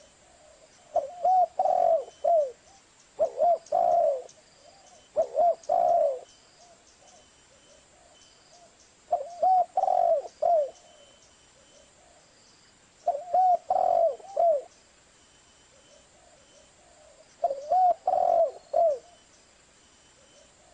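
Spotted dove cooing: six short phrases of three or four rounded coo notes each. The first three follow close together, then three more come at gaps of about three to four seconds.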